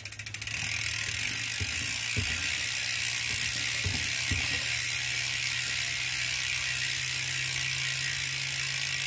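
SpeedOne rear hub's freehub ratchet clicking as the wheel spins freely. The very fast clicks blend into a steady buzz about half a second in.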